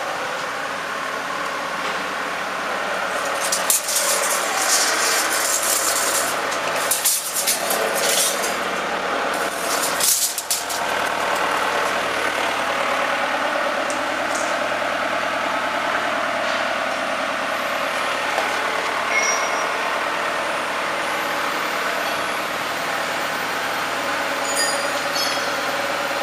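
Steady hum of factory machinery, with loud bursts of hissing a few seconds in and again about ten seconds in.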